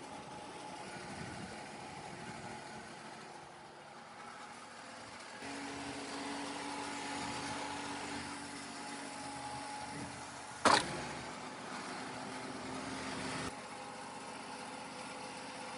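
An engine running steadily at idle. About five seconds in, a second steady machine hum joins it for about eight seconds, then cuts off suddenly; a single sharp clank comes near the middle of that stretch.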